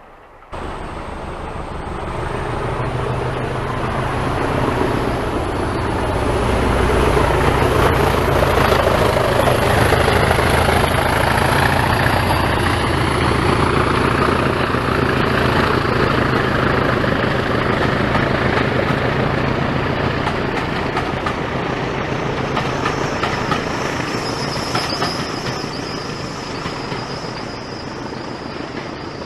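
Diesel train passing: a low engine hum and the rumble of the train swell over the first several seconds, then slowly fade, the hum dropping away about two-thirds of the way through. A high steady whine sounds near the end.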